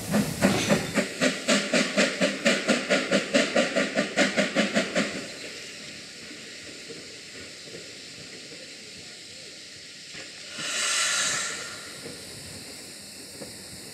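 Steam locomotive exhaust beats, about five sharp chuffs a second, stopping abruptly about five seconds in. Near the end comes a hiss of escaping steam lasting about a second.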